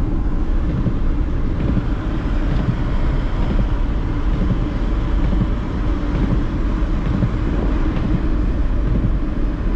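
A car driving steadily through deep snow, heard from inside: the engine and tyres make a continuous low noise with no letup as it keeps its momentum.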